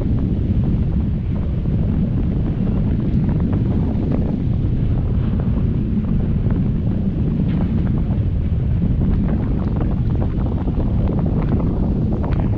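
Wind buffeting the microphone of a GoPro camera carried aloft on a kite line: a steady, dense low rumble with light crackling mixed in.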